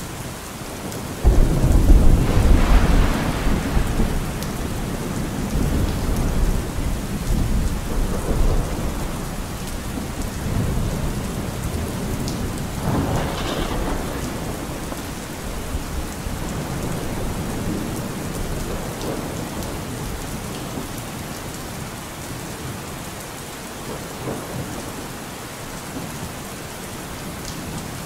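Thunderstorm: steady rain with a sudden loud thunderclap about a second in that rolls on for several seconds, and another rumble of thunder near the middle.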